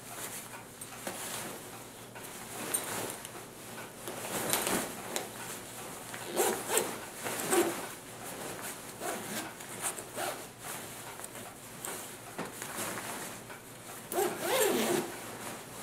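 Zipper of a USGI Modular Sleep System's black intermediate cold-weather sleeping bag being pulled closed in a series of irregular short strokes, with the nylon fabric rubbing as it is gathered.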